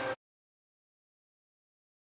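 Complete digital silence, after a steady sound cuts off abruptly in the first instant.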